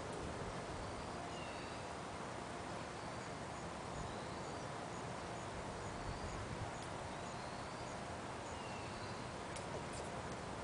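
Open-air background hiss with faint, scattered high chirps and short falling calls of small birds, and a couple of light clicks near the end.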